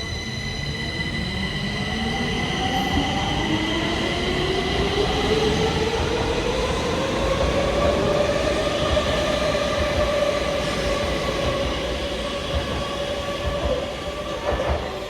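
Electric train pulling away: the motor whine rises steadily in pitch for about eight seconds and then holds, over a steady rumble of wheels on track. A few high steady tones fade out early on, and there are a couple of knocks near the end.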